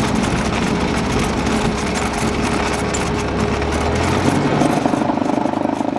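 Cessna 172's piston engine running at low power, heard inside the cockpit as the plane rolls over a grass airstrip, with rumble and rushing noise. The engine note changes about four seconds in.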